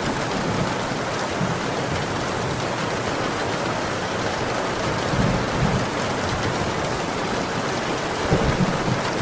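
Heavy rain pouring steadily, with brief low rumbles of thunder about five seconds in and again near the end.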